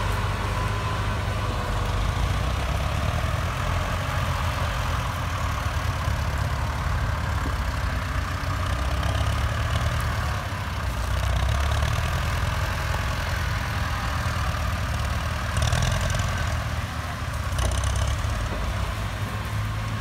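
Ford farm tractor's diesel engine running steadily under load as it pushes through dry brush and tall grass.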